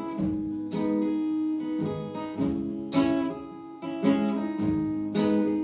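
Acoustic guitar strumming chords in a slow instrumental passage between sung lines, each chord left to ring before the next strum.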